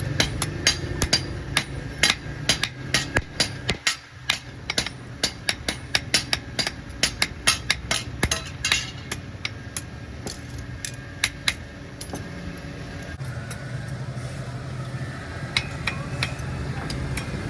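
Hammer blows on steel as sickle blades are forged, several sharp strikes a second, thinning out after about twelve seconds, over a low steady hum.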